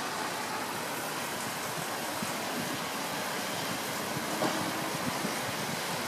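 Steady road traffic noise, with a brief slightly louder sound about four and a half seconds in.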